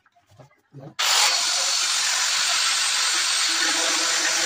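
Handheld power tool spinning a 22 mm diamond core bit as it wet-drills into granite. A steady, loud grinding noise starts suddenly about a second in.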